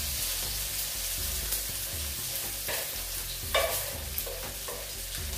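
Freshly added sliced onions sizzling in a hot non-stick electric skillet, stirred with a wooden spatula that scrapes the pan a few times. This is the start of frying the onions until they brown.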